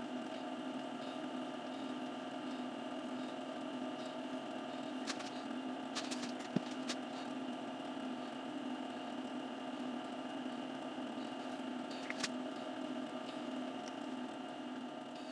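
Wood lathe motor running steadily with a multi-tone hum, the workpiece turning in the chuck while it is painted. A few light clicks come over it about five to seven seconds in and again near twelve seconds.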